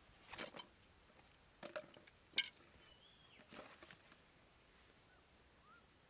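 Quiet handling sounds on bare dirt: a few short scuffs and knocks in the first four seconds, the sharpest about two and a half seconds in, as a small axe, bamboo sticks and plastic bottles on a cardboard base are moved and set down. A couple of faint bird chirps follow.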